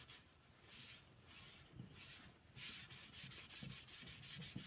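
Cloth rubbing surface wax onto a chalk-painted wooden rolling pin: faint, repeated back-and-forth wiping strokes, coming closer together in the second half.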